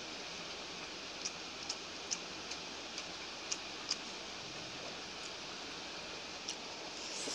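Steady background hiss with about eight soft, sharp clicks of a person eating rice by hand, spread irregularly, and a brief rustle near the end.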